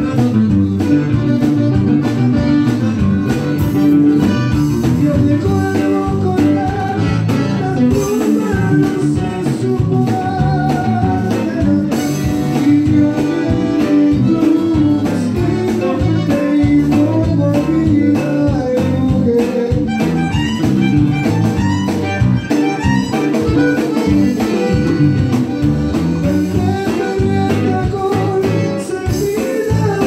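Live band music: a button accordion leading over electric guitar, electric bass and a drum kit, playing steadily.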